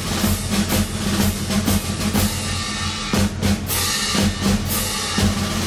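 Music with a strong drum beat over a steady bass line.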